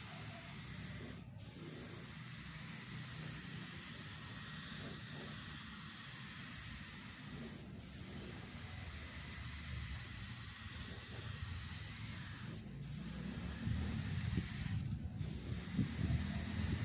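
Gravity-feed spray gun hissing steadily as it sprays a finish coat from compressed air, cut off four times for a moment as the trigger is let go. A low rumble grows louder near the end.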